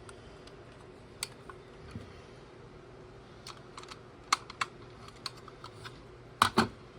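Plastic building bricks being handled and pressed together: scattered sharp plastic clicks and taps, the loudest a close pair near the end. A faint steady low hum runs underneath.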